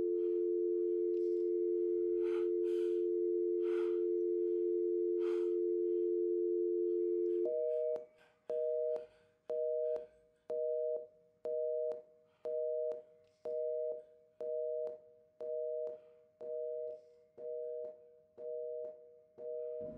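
Telephone dial tone, steady for about seven and a half seconds, then switching to a busy signal that beeps about once a second: the sound of a dead, disconnected line.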